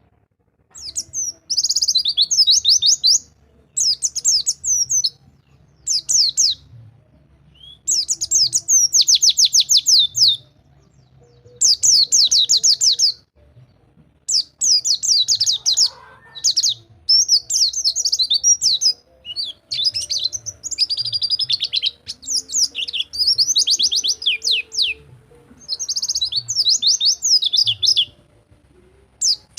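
White-eye (pleci) singing its 'rol tembak' song: repeated bursts of very rapid, high trills, each a second or two long, separated by short pauses.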